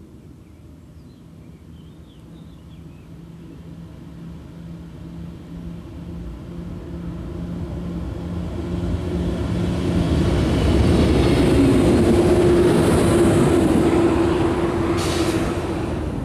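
A train approaching and passing close by on the track, growing steadily louder for about ten seconds with a steady hum over rumbling wheel noise, then beginning to fade near the end. A short hiss comes shortly before the end.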